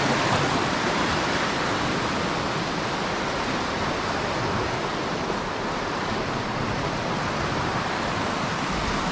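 A river swollen with flood water rushing past in a powerful stream: a steady, unbroken rush of water.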